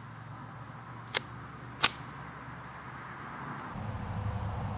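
Two sharp cracks of .22 LR rifle fire, Winchester Hyper Velocity 40-grain rounds, about 0.7 s apart; the second is louder.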